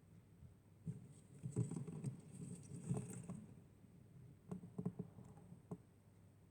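A tortoise moving about in shallow water: soft pattering with light taps and clicks, in two bouts, the first about a second in and the second around four and a half seconds in.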